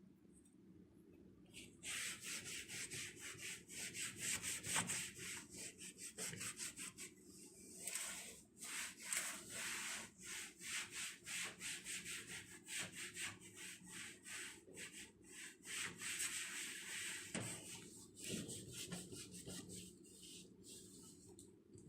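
Rapid back-and-forth scrubbing of a microwave oven's surface during cleaning, a hissy rubbing sound of a couple of strokes a second that starts about two seconds in and goes on with short breaks.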